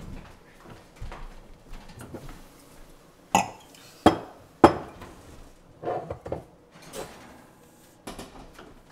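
Kitchen clatter: dishes, utensils and glassware knocking and clinking in a string of separate sharp knocks, the three loudest falling between about three and five seconds in.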